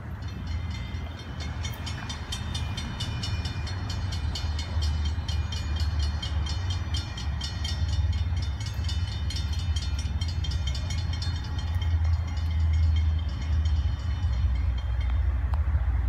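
Approaching Florida East Coast Railway freight train rumbling low and steadily, growing louder as it nears. Over it runs a rapid, evenly repeating high-pitched ringing that stops near the end.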